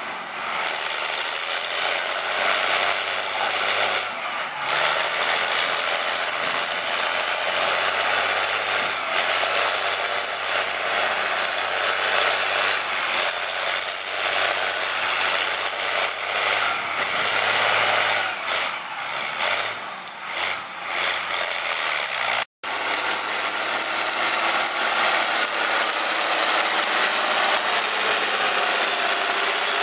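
Case IH 956 XL tractor's six-cylinder diesel engine running steadily under load while pulling a reversible plough through mud. The sound cuts out for a moment about three-quarters through, then carries on.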